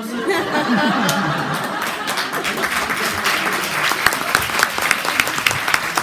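Audience applause, a dense patter of many hands clapping, with voices mixed in during the first second.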